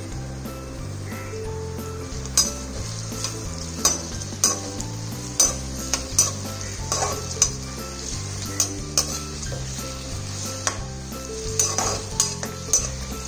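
Cut onions frying in ghee and oil, sizzling steadily while being stirred until brown, with irregular sharp clacks and scrapes of the spatula against the pan.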